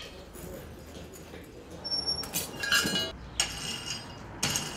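Clinks and rattles of an iron poker stirring the coal in a blacksmith's forge fire: a cluster of sharp metallic clinks about halfway through and a few more near the end.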